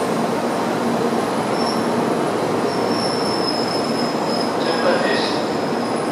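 Tokaido Shinkansen N700A train moving past along the station track: a steady rumble and hiss of the running train, with a thin high-pitched squeal setting in after about a second and a half and a brief gliding squeal about five seconds in.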